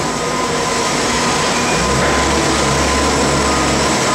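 Cardboard sorting conveyor and recycling-plant machinery running: a loud, steady mechanical din with a thin steady tone through it, and a low rumble that grows stronger about two seconds in.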